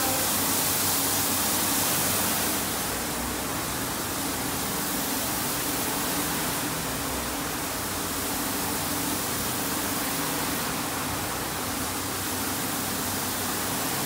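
RWM78 automatic carpet washing machine running: a steady rush of spraying water and turning brushes over a low motor hum. It eases slightly about two and a half seconds in.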